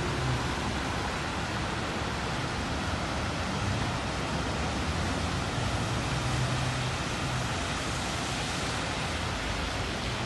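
Steady hiss of rain and water on a flooded street, with cars driving through the standing water.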